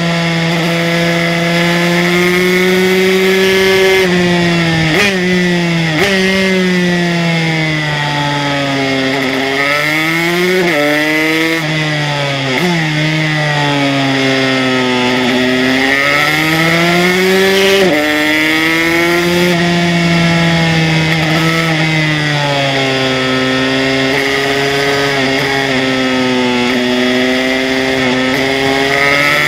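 Aprilia RS125's two-stroke single-cylinder engine, bored out to 144cc, running hard on track: the pitch sags and climbs as the bike brakes into corners and drives out, with several sudden jumps in pitch as gears are changed down and up.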